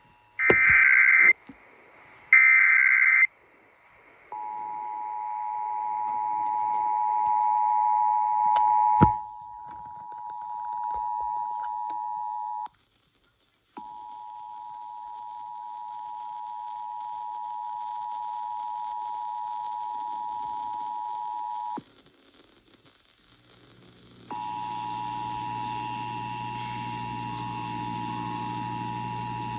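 Emergency Alert System monthly test tones: two one-second bursts of SAME header data tones, then the EAS two-tone attention signal, a steady dual tone held for about eight seconds. The attention signal stops briefly, sounds again for about eight seconds, and starts a third time about twenty-four seconds in over a low hum.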